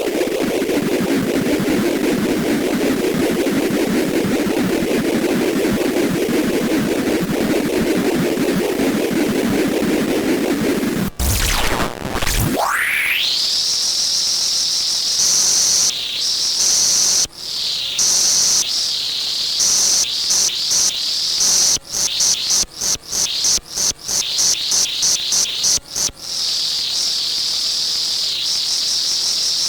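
Circuit-bent toy sound chips making glitchy electronic noise. A buzzy low drone runs for about eleven seconds, then the pitch dives sharply and sweeps back up. A high shrill tone follows, stuttering on and off rapidly in places.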